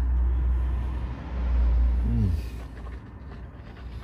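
Road traffic: the low rumble of a vehicle passing on the busy road, fading away about two and a half seconds in.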